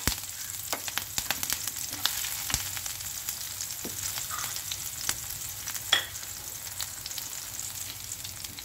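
Chopped ginger, garlic and green chilli sizzling and crackling in hot oil in a non-stick frying pan, with a spatula scraping the pan as they are stirred. One sharper knock about six seconds in.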